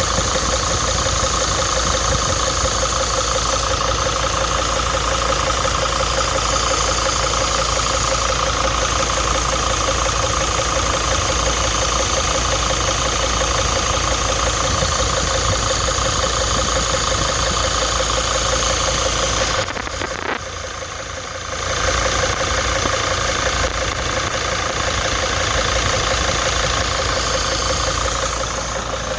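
Starter motor cranking a 2002 Mercedes Sprinter's diesel engine, a long steady whine without catching; it stops briefly about 20 seconds in and then resumes. This is a hard start, which the owner puts down to air bubbles in the fuel lines.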